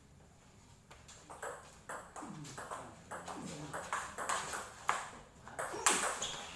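Table tennis rally: the ball clicking off the rubber paddles and bouncing on the table in quick succession, starting about a second in, with the sharpest hits near the end.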